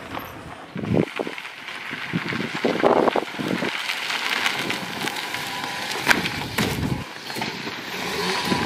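Honda City sedan driving along a dirt and gravel track: tyres crunching and crackling over loose ground, with engine noise underneath.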